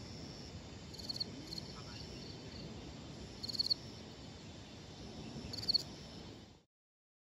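Crickets chirping in short, high trills every second or two over a steady low hiss. The sound cuts off suddenly near the end.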